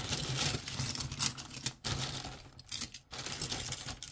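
Costume jewelry clinking and jangling as it is tipped out of a plastic bag and sorted by hand, with the bag crinkling; the handling comes in a few spells with short pauses between.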